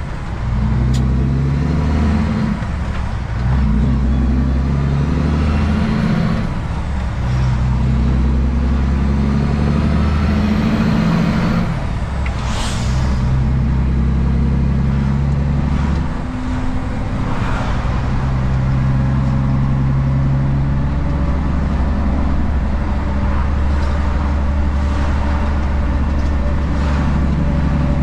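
Heavy truck's diesel engine heard from inside the cab, pulling through the gears of an 18-speed Road Ranger manual gearbox: the engine note holds steady, then steps and the sound dips briefly at each of several gear changes. A short hiss about twelve seconds in.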